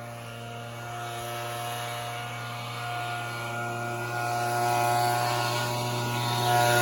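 Low-flying aircraft passing over: a steady engine drone that grows gradually louder. The noise is loud enough to drown out the work being filmed.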